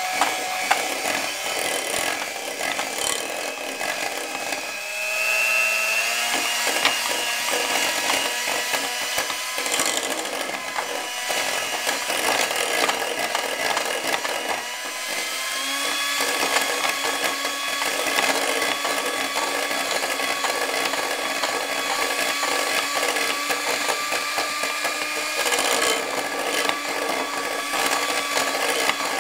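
Electric hand mixer running, its beaters creaming butter and agave nectar in a glass bowl. The motor's whine shifts in pitch a few times over a constant clatter and scrape of the beaters against the glass.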